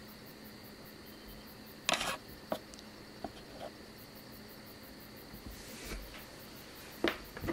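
Quiet room tone with a faint steady hum, broken by a few short clicks and rustles. The loudest comes about two seconds in, and another comes near the end.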